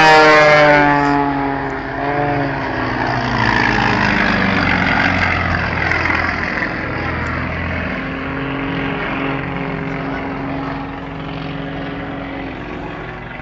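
Aircraft engine sound from a display plane flying past. Its pitch drops as it goes by in the first second, then it settles to a steadier drone that grows quieter.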